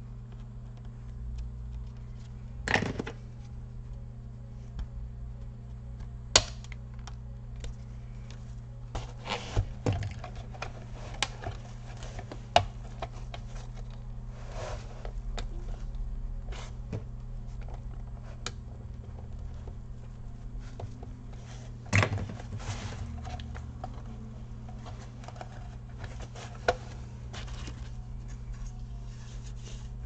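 Plastic snap-fit clips of a laptop's bottom cover clicking and snapping as the case is pried apart at the seam: scattered sharp clicks with small scrapes between them, over a steady low hum.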